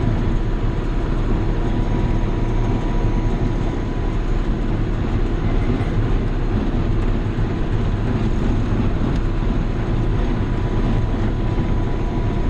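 John Deere 7200 tractor running steadily under load, driving a New Holland 570 square baler off the PTO while baling hay.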